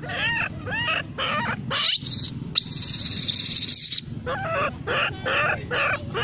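Baby long-tailed macaque crying for its mother: a rapid run of short, high, squealing cries, several a second, broken from about two to four seconds in by a harsher, higher shrill sound that starts and stops abruptly.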